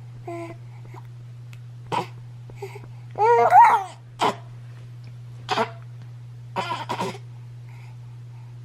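A baby cooing and making short, cute vocal noises: about six brief squeaks and coos, the longest a wavering, pitched coo about three seconds in. A steady low hum runs beneath.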